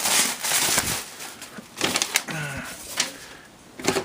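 Packaging rustling and crackling as PC component boxes are handled and opened by hand. About two seconds in there is a brief low hum that falls in pitch.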